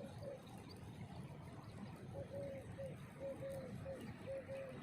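A dove cooing: short, low, soft notes in groups of two or three, repeated about once a second from about two seconds in, over a faint steady background.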